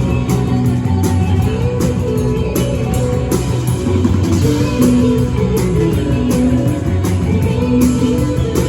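A rock band playing with guitar and drums, with steady low notes and regular cymbal strikes.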